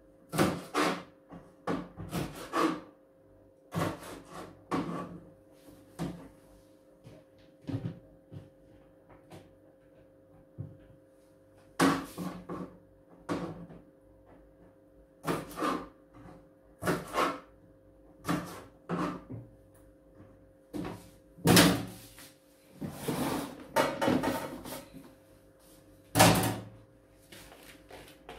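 Knife knocking on a cutting board in irregular clusters as green beans are trimmed and handled, with a few louder kitchen clatters. A faint steady hum runs underneath.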